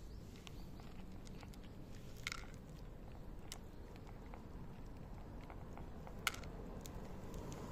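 Two cats crunching dry kibble from a shallow plate: many small crisp crunches and clicks, with two sharper clicks about two and six seconds in.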